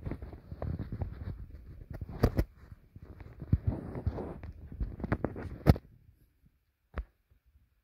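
Pet rat chewing cucumber close to the microphone: wet crunching with many sharp clicks, stopping about six seconds in, then one lone click a second later.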